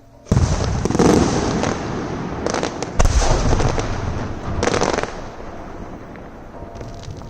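Aerial firework shells bursting in quick succession: a loud boom about a third of a second in, then further booms about a second, three seconds and five seconds in, each with a rumbling tail. The rumble dies down, and sharp crackles come near the end.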